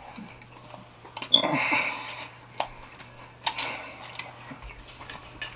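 Close-miked eating sounds: chewing and wet mouth clicks, with a louder noisy patch about a second and a half in and a few sharp clicks after it.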